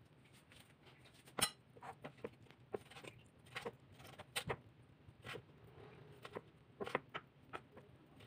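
Kitchen knife cutting raw chicken breast into cubes on a wooden cutting board: faint irregular taps and knocks of the blade meeting the board, the loudest about a second and a half in.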